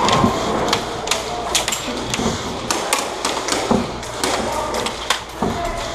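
Airsoft guns firing single shots: a dozen or so sharp cracks at irregular intervals.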